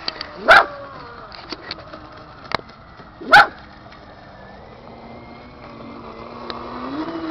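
A dog barks twice, single sharp barks about half a second in and again about three seconds later. Under it, a low motor hum grows louder and rises in pitch near the end: the brushless RC boat's electric motor running as the boat heads back in.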